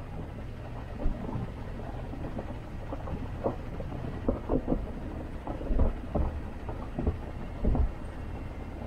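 Jeep Cherokee XJ driving off-road: a steady low rumble with irregular knocks and thumps from the body jolting over rough ground, most of them in the middle and latter part.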